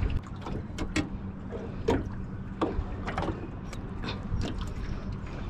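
Small aluminum fishing boat rocking on choppy water: irregular knocks and slaps against the hull over a steady low rumble with a faint hum.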